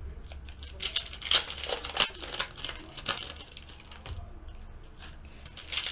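Trading cards and a foil pack wrapper being handled: irregular soft crinkling and light clicks as the cards are sorted through in the hands.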